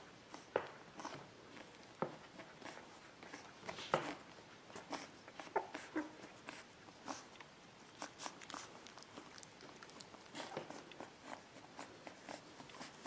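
Beagle puppy making faint sleep noises: irregular small clicks and smacks from its mouth and nose, a few a second, with a couple of brief soft whimpers.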